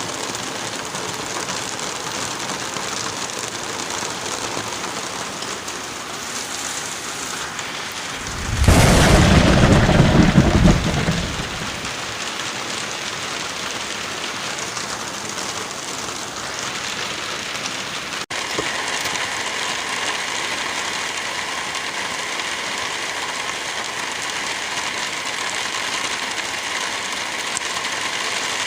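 Steady rain, with a loud thunderclap about nine seconds in that lasts around three seconds and dies away. Just past halfway the rain cuts abruptly to a slightly different, steadier hiss.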